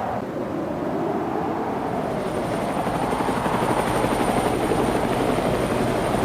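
Helicopter running steadily with a continuous fluttering rotor noise, growing slightly louder; a thin high whine comes in about two seconds in.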